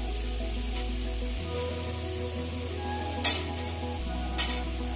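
Potato and eggplant cubes sizzling in hot oil in a metal kadai, a steady frying hiss. A metal spatula knocks or scrapes against the pan twice, a little past three seconds and again about a second later.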